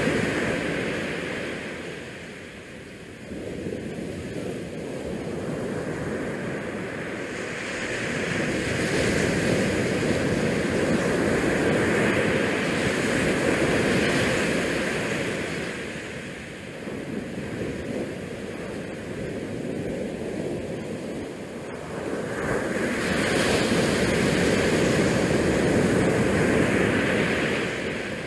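Wind buffeting the camera's microphone: a rushing noise that swells and eases in slow gusts, loudest near the start, in the middle and near the end.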